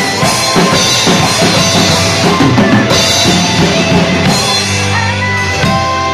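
Drum kit played with sticks along to a recorded pop-rock song: snare, bass drum and cymbal hits over the backing track. The busy drumming thins out about four and a half seconds in, with one more hit near the end, over held chords.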